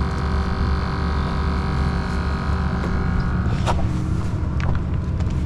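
Steady low rumble with a constant hum, and a few light clicks about two-thirds of the way through.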